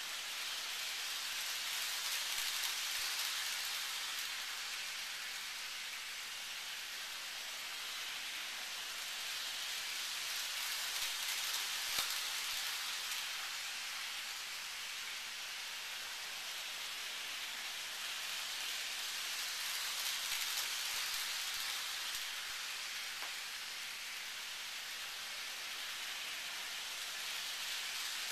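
Toy train running around an oval track: a steady rattling hiss of wheels on the rails that grows louder and fades about every eight or nine seconds as it comes around each lap, with one small click about halfway through.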